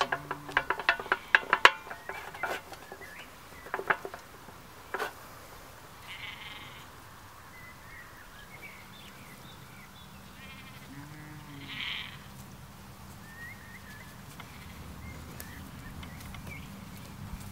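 A cloth rubbing and squeaking in quick strokes over the brass dome and red paintwork of a miniature steam locomotive for the first few seconds. Then a sheep bleats twice, about six and twelve seconds in, with faint birdsong behind.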